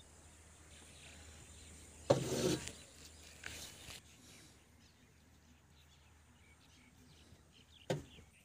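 Stones being thrown by hand into a tractor's loaded trolley, landing with a loud clunk and a short rattle about two seconds in, two lighter knocks a second or two later, and another sharp clunk near the end. Faint bird chirps in the background.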